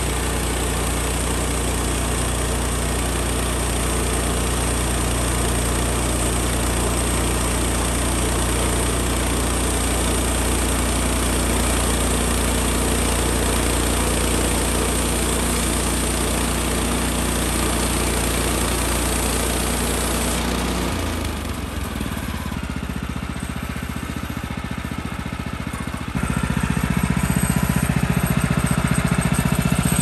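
Woodland Mills HM126 portable bandsaw mill running its first cut: the engine runs steadily under load with a broad hiss of the band blade cutting through a pine log. About two-thirds of the way through, the cutting hiss stops and the engine note drops and changes, then comes back up louder a few seconds later.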